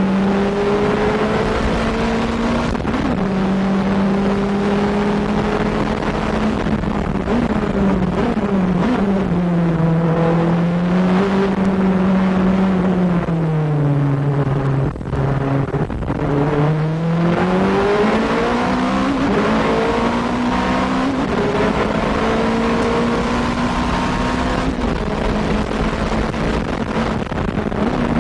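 Nissan R90CK's twin-turbo V8 racing engine running hard at high revs. The pitch holds near steady, dips about eight seconds in, falls to its lowest about halfway through as the car slows, then climbs back up as it accelerates and holds again.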